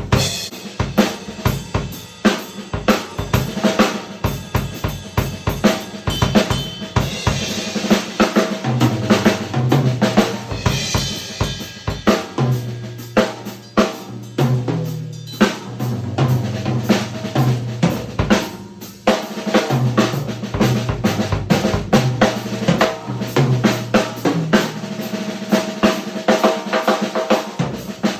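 Yamaha Recording Custom drum kit played live in an improvised groove: kick drum, maple snare with rimshots, rolls and Zildjian cymbals, hit densely throughout, with low drum tones ringing out now and again from about a third of the way in.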